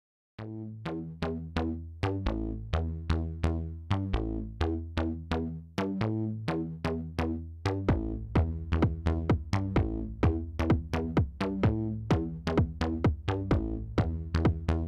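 Background electronic music: quick, evenly spaced synth notes over a bass line, with a steady drum-machine beat. It starts after a brief silence and gets fuller about halfway through.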